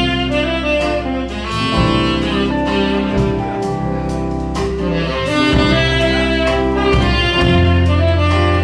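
Orchestra playing a continuous passage of held, pitched notes over a sustained bass line, with the bass growing louder near the end.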